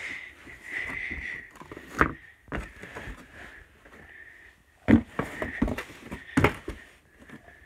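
Handling noise from a cardboard LEGO set box being moved and knocked about: several dull knocks, the loudest about five and six and a half seconds in, over a faint steady high-pitched tone.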